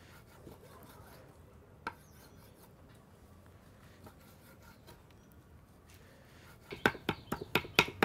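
Cleaver cutting raw liver on a wooden chopping board. It begins as quiet slicing with a single knock about two seconds in. Near the end it becomes rapid chopping, about five strokes a second, as the liver is minced fine.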